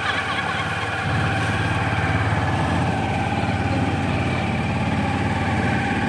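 Small wooden boat's engine running steadily under way, a constant drone that gets a little louder about a second in.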